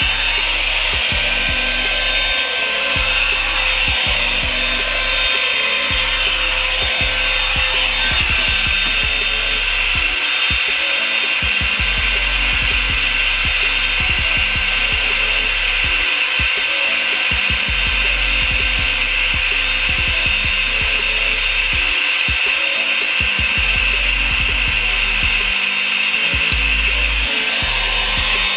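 Revlon brush blow dryer running steadily, its fan motor giving a high, even whine over the rush of hot air.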